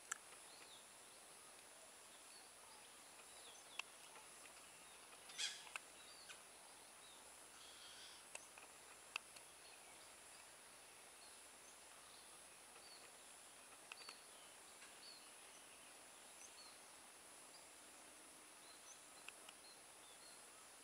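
Near-silent outdoor ambience with faint, scattered short bird chirps and a few sharp clicks, the loudest a brief crackle about five seconds in; a thin steady high-pitched tone runs underneath.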